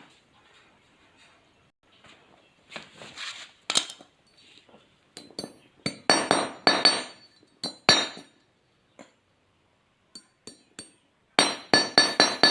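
Quick bursts of light metallic taps and clinks, several strikes a second with a ringing edge, from a small tool on metal while steel binding wire is fastened around a welding cable.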